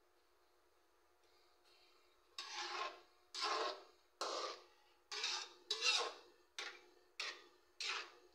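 A metal ladle scraping and stirring in a metal wok of fish soup, in about eight rasping strokes that begin a couple of seconds in.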